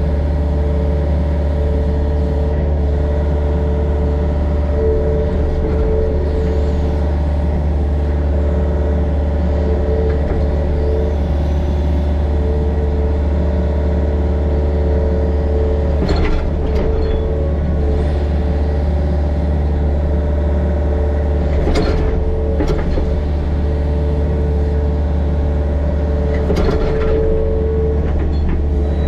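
Excavator's diesel engine running steadily under load with a steady hydraulic whine, and three brief knocks of the bucket and linkage spread through.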